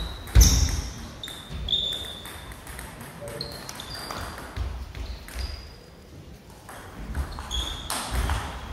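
Table tennis ball clicking against rubbered paddles and bouncing on the table during doubles rallies, each hit a sharp click with a short high ping. A quieter spell in the middle, then a fresh burst of hits near the end.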